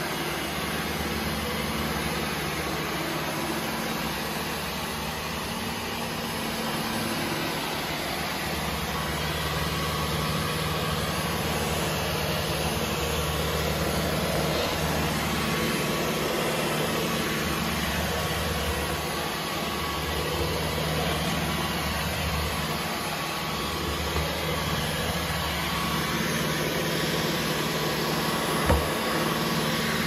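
Dyson V15 Detect cordless stick vacuum running steadily, its Laser Slim Fluffy cleaner head pushed across a hard floor, with one short low knock near the end.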